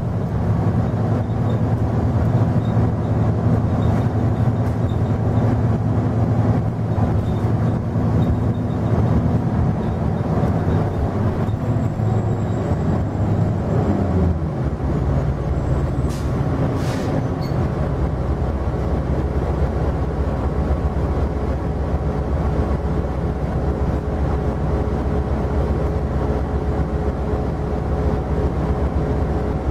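Cummins ISL9 diesel engine of a Nova Bus LFS with an Allison B400R automatic transmission, heard from inside the bus. It runs under way, its pitch falls as the bus slows about halfway through, and then it idles with a low, steady rumble while the bus stands.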